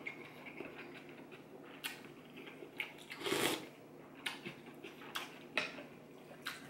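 A person slurping rice noodles from a bowl of soup, with one longer slurp about three seconds in and short clicks and smacks of eating in between.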